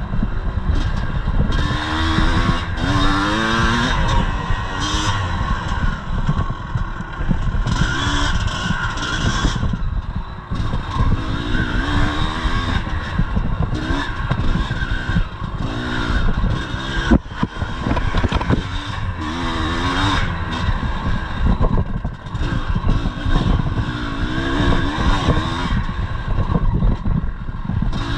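1983 Yamaha IT 250's two-stroke single-cylinder engine under hard riding, its pitch repeatedly rising and falling as the throttle is worked and gears change. Occasional sharp knocks from the bike come through, the loudest about two-thirds of the way in.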